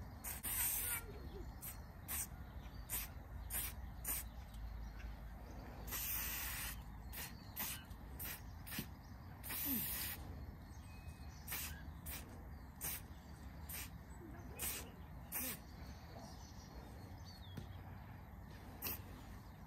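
Aerosol spray paint can hissing in many short bursts, with three longer sprays near the start, about six seconds in and near ten seconds.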